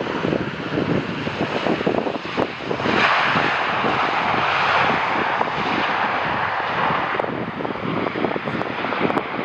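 Airliner landing close by: the jet engine noise swells about three seconds in, holds, and eases off after about seven seconds. Wind buffets the microphone throughout.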